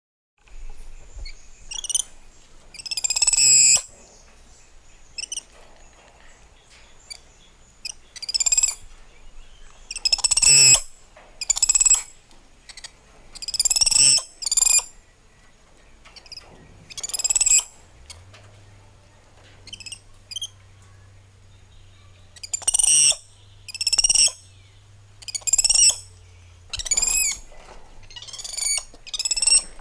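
Spider monkeys calling: a string of short, high-pitched, wavering squeals and chirps, one every one to three seconds.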